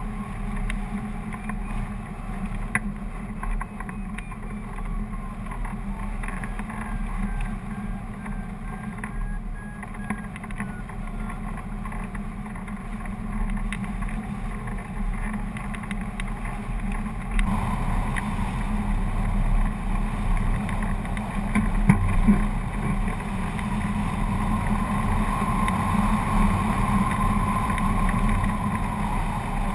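Steady rush of air buffeting the microphone of a camera mounted on a hang glider in flight, with a deep rumble. It grows louder a little past halfway through.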